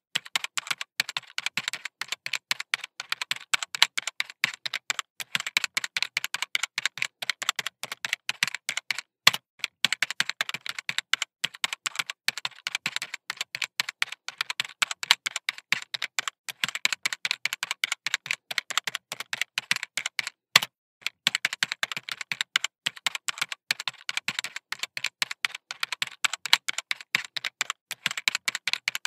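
Fine-tip pen tapping dots onto sketchbook paper while stippling: quick sharp taps, several a second, with a couple of brief pauses.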